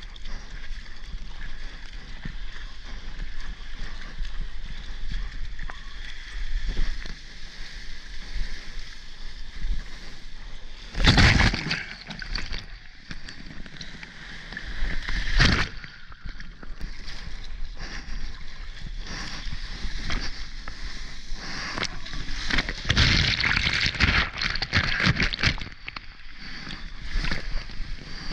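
Seawater sloshing and rushing right against an action camera as a surfer paddles and rides a soft-top surfboard through small breaking waves and whitewater. Two loud splashes about eleven and fifteen seconds in, and a longer loud wash of foam near the end.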